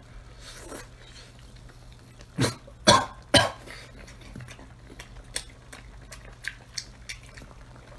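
A man coughs three times in quick succession, about half a second apart, while eating. Faint scattered clicks follow, from chopsticks and chewing.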